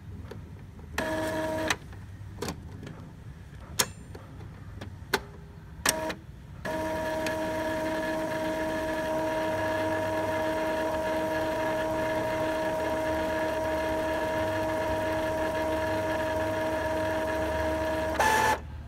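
Epson L-series ink-tank inkjet printer running a print-head cleaning cycle to clear clogged nozzles. A short motor hum and a few sharp mechanical clicks are followed, from about seven seconds in, by a steady motor whine that shifts pitch briefly and stops near the end.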